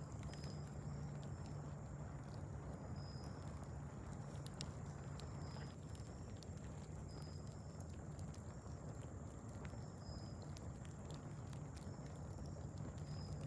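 Wood fire crackling softly, with scattered sharp pops and ticks. Short high chirps recur every second or two, over a steady low hum.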